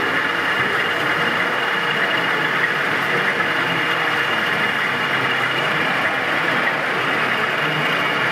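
Steady diesel engine sound from a DCC sound-fitted OO gauge model of a Freightliner Class 70 locomotive running slowly, with a thin steady whine over an even hall background.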